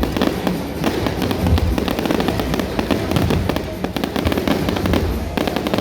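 Fireworks going off: a dense, continuous crackle of many sharp reports with recurring low booms.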